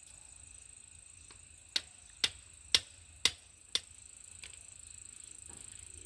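Five sharp hammer knocks, about two a second, as the hammer is swung at the base of a corn plant, over a steady high drone of insects.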